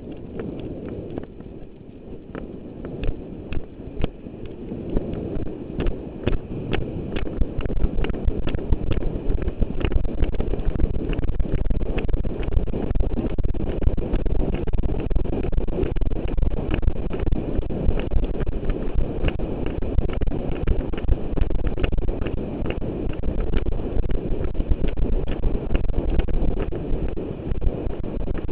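Thoroughbred galloping in a breeze workout, its hoofbeats beating in a quick rhythm under heavy wind buffeting on a rider's helmet-mounted microphone. It grows louder about eight seconds in as the horse picks up speed.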